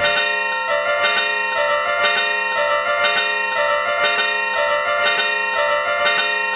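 Japanese level-crossing alarm ringing its repeated 'kan-kan' clang, about two strokes a second, the pitch stepping back and forth between strokes. A short sharp noise sounds right at the start.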